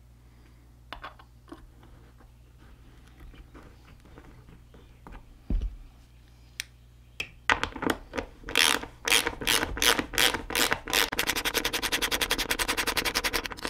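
Ratchet wrench with a socket driving a screw into a wooden workbench. After a few light knocks while the screw is set, it starts about halfway through with uneven strokes, then turns to rapid, even clicking near the end.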